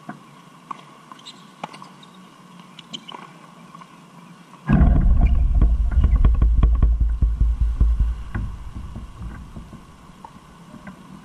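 Wind buffeting the camera microphone: a sudden loud, low rumble with crackle sets in about halfway, lasts about three seconds, then fades away. Before it, a few faint taps of tennis balls being struck on the court.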